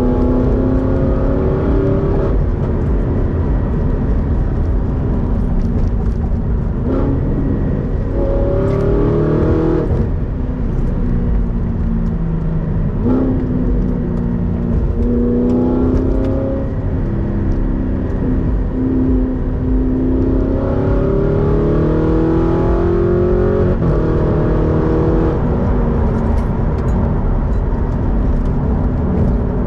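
Supercharged Audi R8 4.2 V8 with a Capristo exhaust, heard from inside the cabin while driving. The engine note repeatedly climbs in pitch under acceleration and then drops abruptly at each gear change, several times, over a constant low road rumble.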